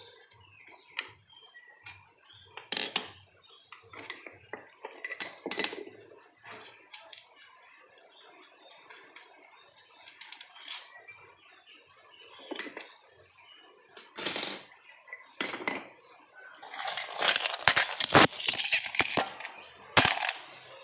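Metal hand tools and scooter parts clinking and clattering while the CVT is being taken apart: scattered knocks, then a busier stretch of rapid clatter near the end.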